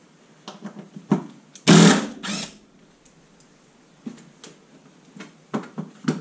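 Clicks and knocks of hand tools and plastic trim being worked on the front end of a car, with two short loud noisy bursts about two seconds in.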